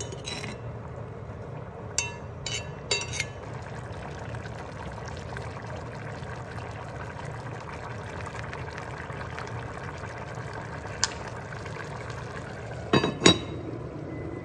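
A metal spoon clinks a few times against an enamelled cast-iron pot while stirring a simmering braise, over a steady low background noise. Near the end, the heavy cast-iron lid is set down on the pot with two loud clanks.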